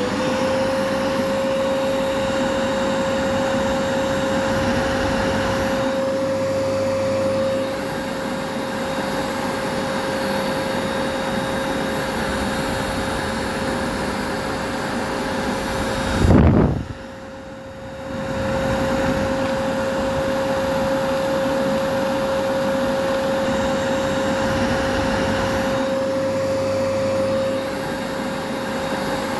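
Vacuum cleaner motor running steadily: a rushing air noise with a high, even whine, which rises into place right at the start. About sixteen seconds in the sound swoops down and drops away for a couple of seconds, then comes back up to the same steady run.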